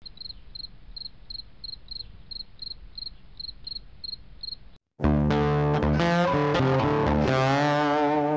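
A cricket chirps steadily, about three evenly spaced chirps a second, then stops sharply just under five seconds in. Guitar music starts right after.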